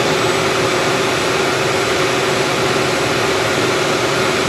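Steady mechanical rushing noise with a constant hum, from a running machine such as a fan or air-conditioning unit, with no change in level.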